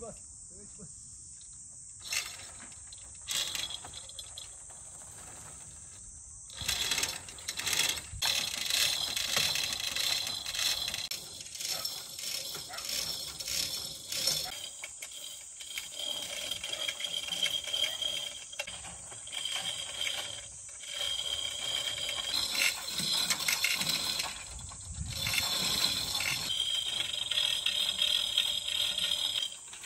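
Manual chain hoists rattling and clicking as their chains are pulled to lower a large cedar log. The rattling comes in spells from about seven seconds in, after a couple of single clicks, over a steady high insect drone.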